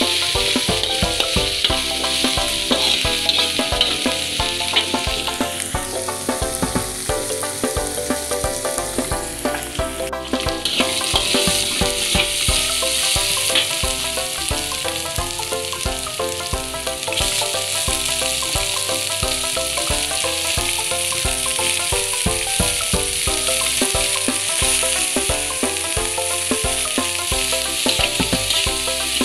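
Shallots, garlic, chillies and lemongrass sizzling loudly as they are stir-fried in a wok, with a spatula scraping and clicking against the pan. The sizzle drops back for a few seconds about five seconds in, then comes up again.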